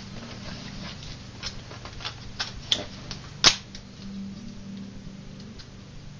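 Hard plastic clicks and knocks as a Canon 430EX II flash's foot is handled and slid into its plastic flash stand: a scatter of light taps, with the two loudest clicks close together about three seconds in.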